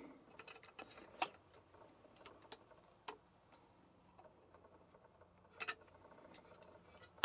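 A few faint, scattered clicks and ticks of a plier-type hand tool working on the whirligig's metal shaft, squeezing it to swage the metal so that the bearings are locked on the shaft.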